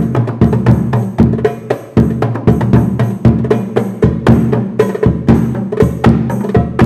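Hadroh percussion played together in a busy, steady rhythm: deep strokes of a large frame bass drum hit with a mallet, over the quicker slaps of a small tam frame drum and a darbuka.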